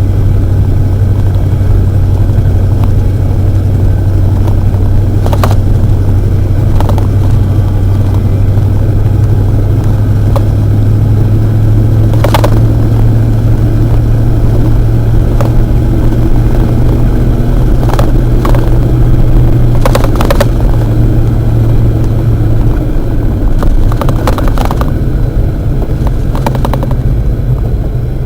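1991 Ford F-150's 302 V8 running steadily under way with a loud, deep drone that eases about three quarters of the way through. A handful of short sharp knocks are scattered over it.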